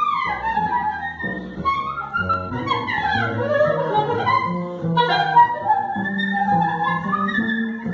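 Free improvised duo of a woodwind and a double bass. The woodwind plays wavering, gliding lines up high while the bass holds low notes beneath.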